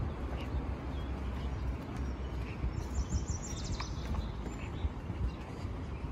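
Low, fluctuating rumble of wind on the microphone, with birds chirping now and then and one rapid high trill about three seconds in.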